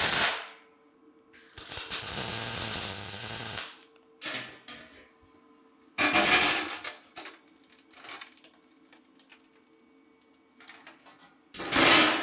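MIG welder laying tack welds on thin sheet steel. There is a two-second crackling weld about two seconds in, and short sharp bursts at the start, about six seconds in and near the end.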